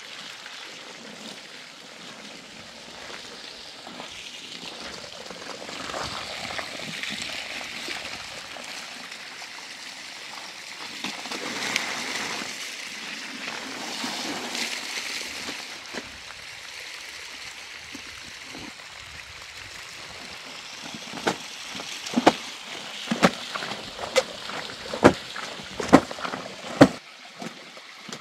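Water running and sloshing, then a series of about ten sharp knocks or slaps in the last several seconds.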